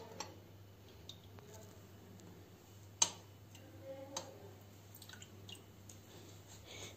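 Scattered light clicks and taps as chicken pieces are set into a glass bowl of flour, the sharpest about three seconds in, over a faint steady hum.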